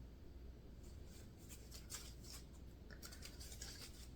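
Faint rustling and small clicks of hands handling floss skeins and their packaging, over a low steady room hum.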